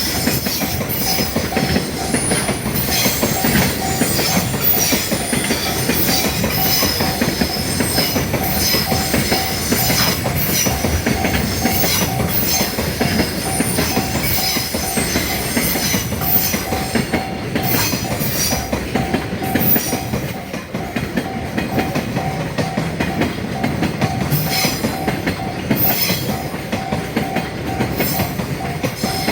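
Freight train running through a level crossing at speed, its wheels clacking over rail joints with some wheel squeal. The crossing's warning bell rings steadily throughout.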